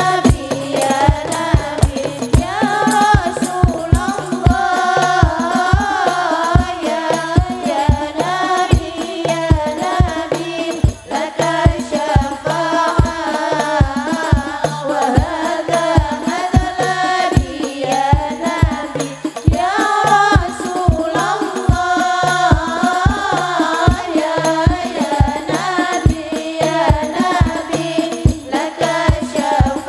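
Several women's voices singing an Islamic devotional song (sholawat) together into microphones over a steady quick beat of hadroh frame drums.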